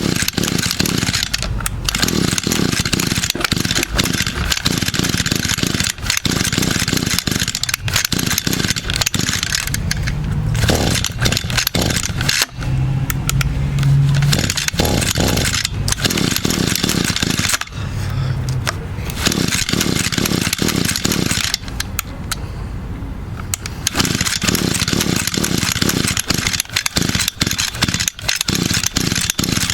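Echo two-stroke string trimmer being pull-started again and again on a cold start, the recoil starter rattling with each pull while the engine cranks but does not run, even with a new carburetor fitted.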